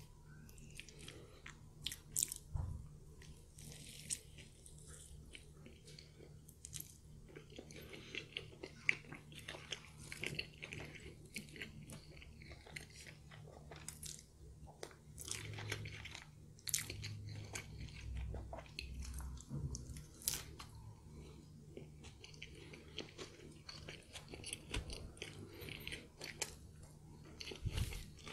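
Close-up eating sounds of crispy fried chicken wings: bites into the crunchy coating and chewing, many small crunches scattered throughout.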